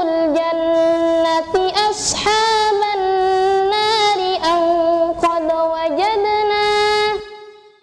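A young woman's solo voice chanting Quran recitation in murottal style: long, melodic, ornamented held notes. The phrase breaks off just after seven seconds in.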